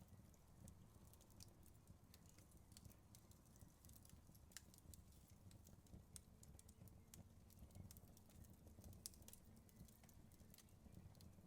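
Faint wood fire crackling: irregular small pops and snaps over a low, steady rumble of the flames.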